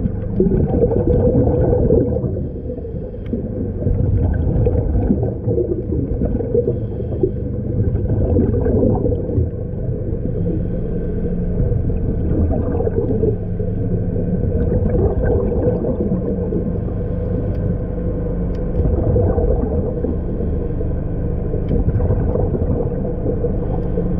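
Muffled underwater sound through a camera housing: a steady low rumble with a constant hum of several fixed tones, and irregular swells of gurgling.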